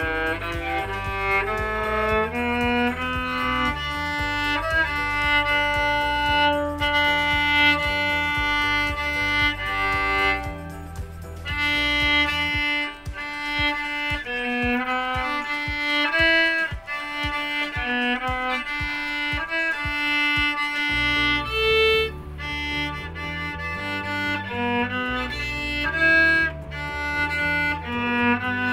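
Viola played with the bow: a melody of held and moving notes.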